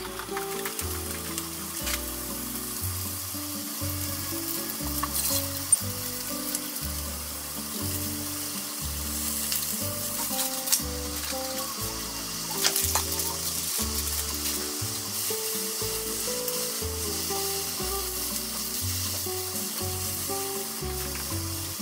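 Eggplant slices sizzling steadily as they fry in sesame oil in a frying pan. A few sharp clicks come as the slices are turned with chopsticks.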